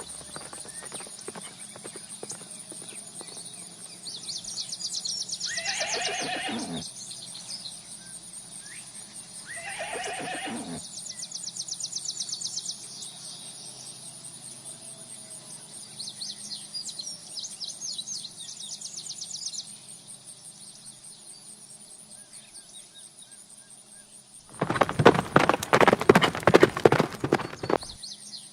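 Horses whinnying twice, about six and ten seconds in, each call falling in pitch, with hooves clip-clopping. Near the end comes a loud run of rapid hoofbeats.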